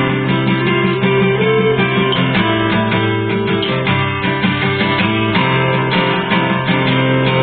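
Instrumental background music played on acoustic guitar, plucked and strummed in a steady rhythm.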